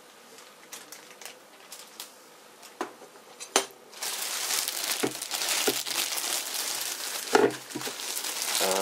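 Plastic shopping bag crinkling and rustling loudly as hands rummage inside it, starting about halfway in. Before that, only a few light knocks.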